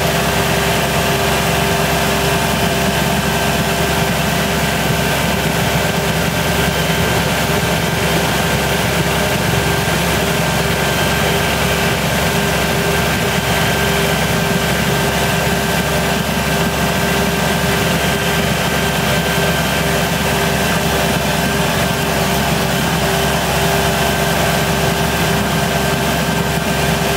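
Tractor engine running steadily while the tractor plows snow, heard from the driver's seat.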